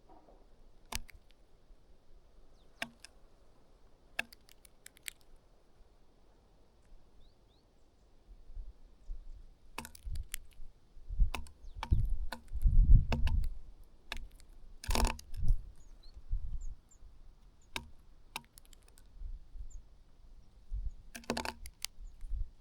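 Small birds pecking at food, making sharp, irregular taps and clicks, with a few faint short high chirps and some low rumbling in the middle.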